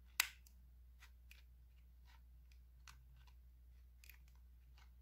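Plastic toy makeup palette being handled while glitter eyeshadow is scraped from its wells: one sharp plastic click just after the start, then a few faint, scattered ticks and scrapes of the tool against the plastic.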